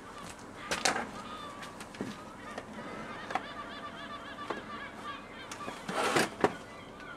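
Scrap metal crashing and clanking at a metal recycling yard: a loud crash about a second in and a longer, louder one near the end, with smaller knocks between and an on-and-off machine tone.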